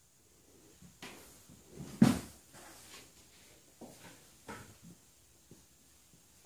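Quiet hall with a few scattered faint knocks and rustles and one louder thump about two seconds in; no piano playing.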